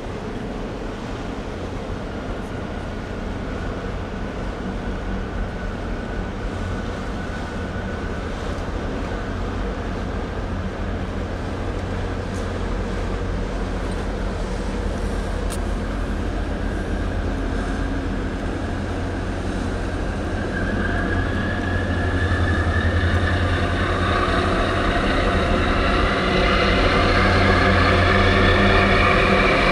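Deep diesel engine drone of harbour craft running steadily and growing louder. About twenty seconds in, a high whine of several tones rises in pitch and swells toward the end as a harbour tug comes up close.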